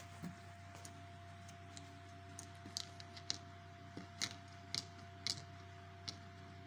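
Faint, sharp plastic clicks and taps, a few in quick pairs, from a small plastic object being handled, over a steady low hum.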